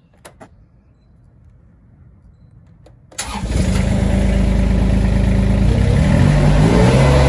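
Kubota diesel engine of a TBR 1005 screening plant started on the key: two light clicks as the key turns, then about three seconds in the engine cranks and catches at once and runs. Near the end it speeds up as the throttle lever is pushed, its pitch rising and then holding steady.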